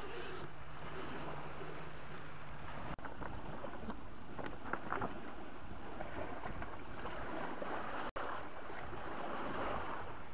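Steady wind rushing over the microphone with waves washing against a rocky shoreline, and a faint low hum over the first couple of seconds. The sound drops out for an instant twice.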